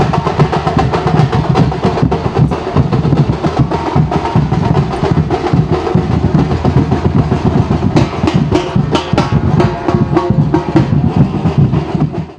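Dhol tasha ensemble drumming: many large barrel-shaped dhol drums beaten with sticks in a loud, dense, fast and unbroken rhythm.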